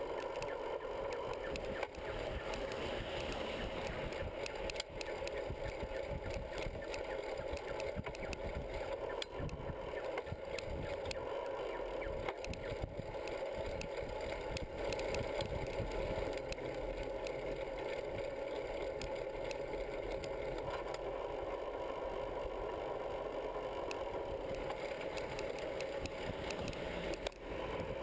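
A bicycle rolling along a paved road, heard from a camera mounted on the bike: a steady rolling and rushing noise with frequent small rattles and knocks from the frame and metal rack over bumps.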